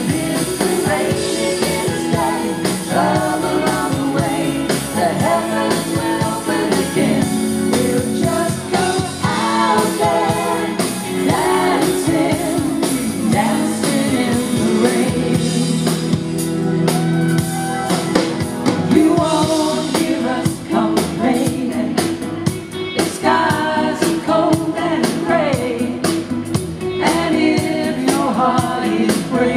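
A pop song performed live by a vocal group, with lead and harmony vocals over a backing band with a steady beat, heard through the venue's PA.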